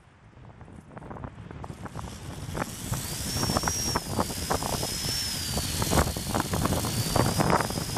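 Strong wind buffeting the microphone, rising from near quiet into a rumble with gusty thumps. About three seconds in, the high, thin whine of a Walkera V120D02 micro RC helicopter's motor and rotors comes in, its pitch wavering up and down as the throttle changes.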